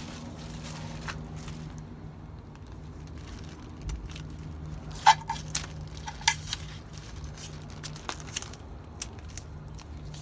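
Scattered clicks, knocks and crinkles of parts and packaging being handled, the sharpest about five and six seconds in, over a steady low hum.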